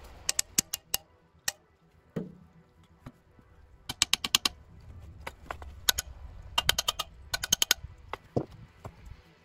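Hammer striking the steel rake head in quick runs of sharp taps, with short pauses between the runs and a couple of duller knocks.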